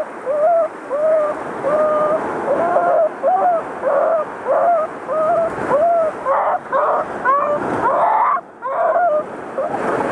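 Boston terrier whining in short, high-pitched yelps repeated about twice a second, agitated at the sight of a shark in the water. Surf washes and splashes underneath.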